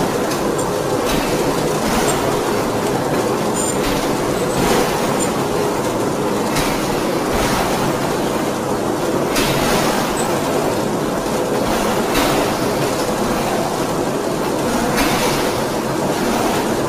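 D53K CNC radial-axial ring rolling mill rolling a red-hot metal ring: a loud, steady mechanical rumble with a faint steady hum, broken every second or two by brief noisy surges as the ring turns through the rolls.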